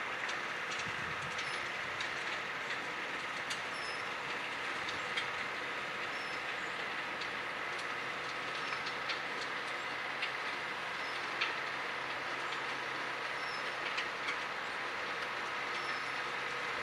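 Distant tractor working a tilled field: a steady engine drone with faint, scattered clicks.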